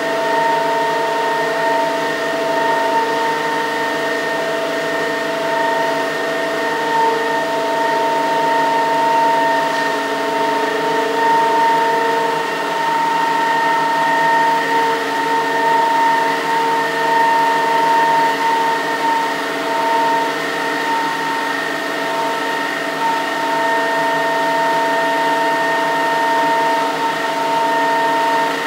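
Single-jet, vertical-axis Pelton turbine with its directly coupled permanent-magnet synchronous generator running steadily under load, delivering about 1.2 kW. It makes a steady whine of several fixed tones over an even hiss.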